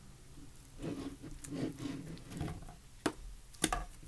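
Soft, irregular patter and rustle as borax is added to slushy slime in a bowl, followed by two sharp clicks a little over half a second apart near the end.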